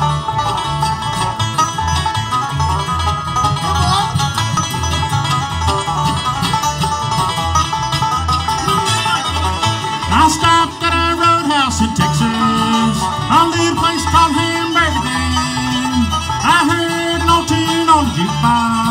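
Live country-bluegrass band playing an instrumental intro on guitars over a steady two-beat bass rhythm, with a lead instrument picking the melody and sliding notes from about halfway in.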